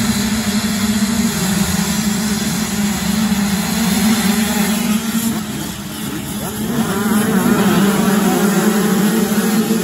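A pack of supermini motocross bikes at full throttle off the start and down the straight. The engines rev hard together, with revs rising and falling, and get louder about seven seconds in as the field passes close by.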